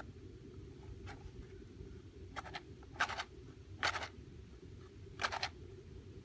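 A wooden match being struck against the striker strip of a cardboard matchbox: four or five short scrapes a second or so apart, over a low rumble of wind on the microphone.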